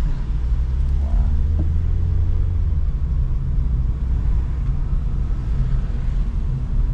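Steady low rumble of a car's engine and road noise heard inside the cabin while driving, swelling a little for a couple of seconds about a second in.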